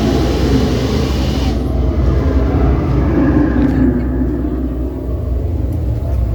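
Ride show effects during the fire scene: a loud rushing hiss cuts off sharply about one and a half seconds in, leaving a steady low rumble.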